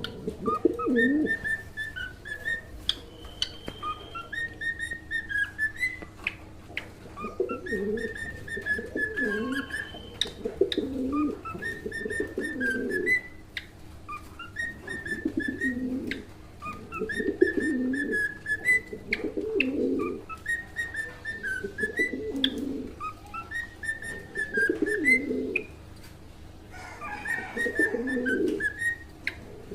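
Cockatiel singing: the same short whistled phrase, rising and falling, repeated about every two seconds. Low calls repeat between and under the whistles.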